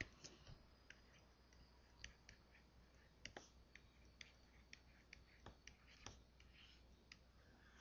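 Near silence broken by about a dozen faint, scattered clicks and taps: a stylus tapping on a tablet screen during handwriting.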